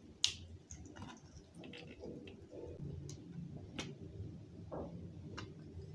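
Faint handling sounds of a lemon being squeezed by hand over a bowl: soft squishing with a few sharp clicks, the sharpest about a quarter second in.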